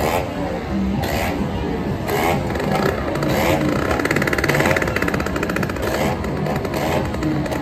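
Motorcycle engine running and revved in repeated short blips, about one a second, with voices in the background.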